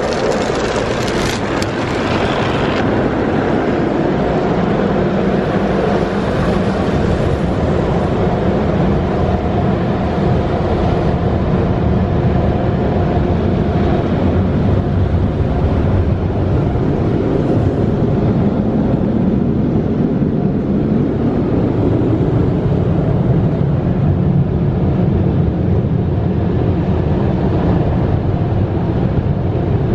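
Automated tunnel car wash heard from inside the car: water spray hissing on the glass for the first couple of seconds, then the steady rush of air from the heated drying blowers overhead.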